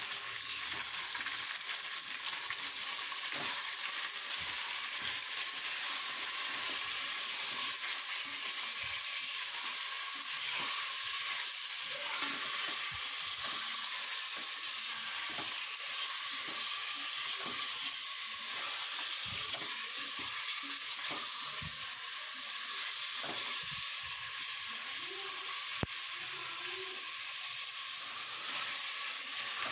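Mutton pieces frying in hot oil in a pressure cooker pot while being stirred with a spatula: a steady sizzle, with scattered light knocks and scrapes of the spatula against the meat and pot.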